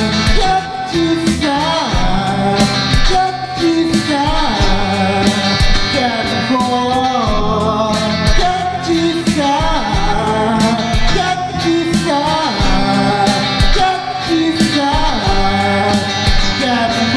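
Rock track built on guitar and drums, with a lead melody that slides between notes over a steady beat.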